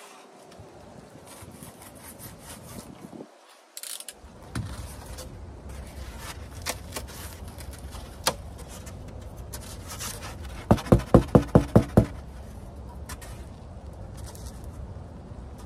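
Rigid white foam insulation board being handled on a pickup tailgate: light scrapes and a few sharp knocks over a low rumble. About eleven seconds in comes a quick run of about eight sharp squeaks lasting just over a second, the loudest sound here.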